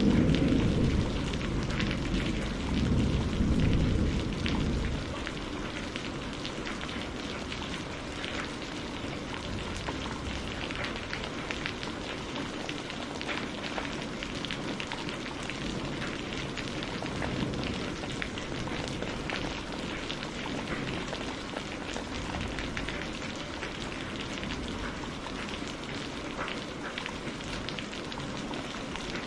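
Steady rainfall pattering, with a low rumble of thunder dying away over the first five seconds.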